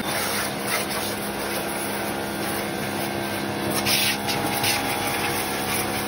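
Bosch Aquatak electric pressure washer running, its motor-driven pump humming steadily under the hiss of the high-pressure water jet striking a motorcycle, with brief louder surges of spray.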